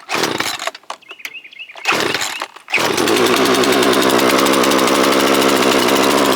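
Poulan Pro 4218 two-stroke chainsaw being pull-started: two short pulls on its epoxy-repaired recoil starter, then the engine catches about three seconds in and runs steadily at an even speed until near the end.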